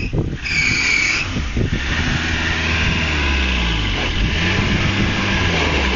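Rock crawler's engine revving as the 4x4 works its way up a boulder, its pitch rising and falling through the middle and end. A brief high-pitched squeal sounds about half a second in.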